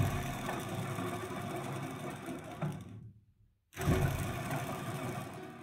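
Small motor-driven homemade mini metal lathe running with a steady, rhythmic mechanical clatter, heard in two stretches about three seconds and two seconds long that are cut off sharply and separated by a short silence.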